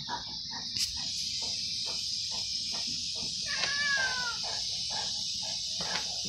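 Saint Bernard puppy panting quickly, about four breaths a second, while play-fighting with a cat. About three and a half seconds in comes a short, falling, high-pitched cry.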